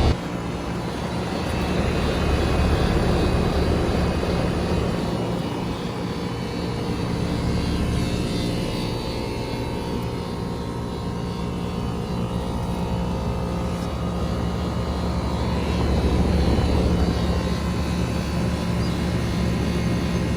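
2003 Ruud Achiever air conditioner running steadily: a low electrical hum from the compressor under the whoosh of the condenser fan, swelling and easing slightly in loudness.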